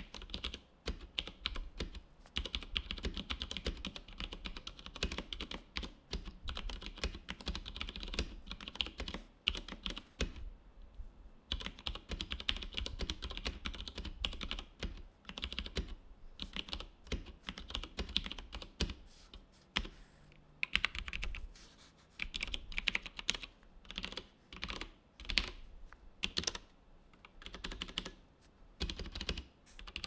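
Typing on an IKBC full-size mechanical keyboard with Cherry MX Brown switches: a fast, continuous run of key clacks, with a pause of about a second near the middle.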